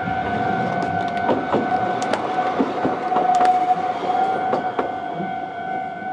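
Level crossing warning bell sounding a steady tone while an Iyo Railway city tram passes over the crossing. The tram's wheels clack over the rails in a run of sharp knocks from about one to five seconds in.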